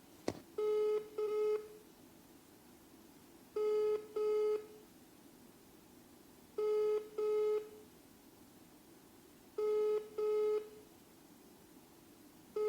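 Mobile phone ringback tone on an unanswered call, heard over the phone's loudspeaker: four double rings, each pair of short buzzing tones repeating every three seconds, after a click just as the call begins.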